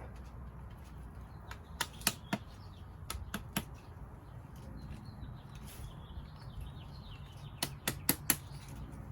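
Sharp clicks and knocks of hard parts and tools as a part is worked onto a VW Beetle transmission. They come in two short clusters, a few about two seconds in and four quick ones near the end.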